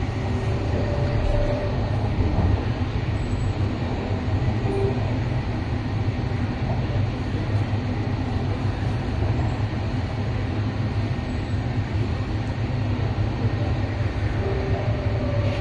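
MTR East Rail Line electric train running at steady speed, heard from inside the passenger car: a constant low rumble of wheels on track with a faint motor hum that comes and goes.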